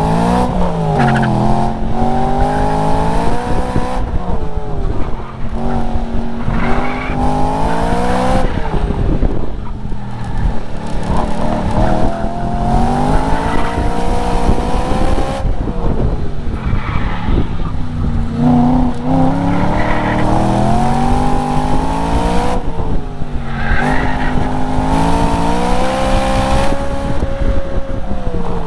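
Car engine heard from inside the cabin on an autocross run, revving up and easing off again about five times as the driver accelerates and brakes between the cones. Tyres squeal through the turns.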